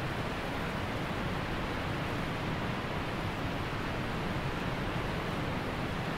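A steady, even rushing noise with no tones or rhythm, holding one level throughout.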